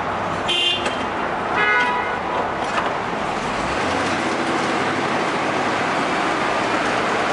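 The 5.7-litre V8 of a 1998 Chevy P30 step van being started and then running steadily, settling into a level run from about four seconds in. Two short high-pitched toots sound within the first two seconds.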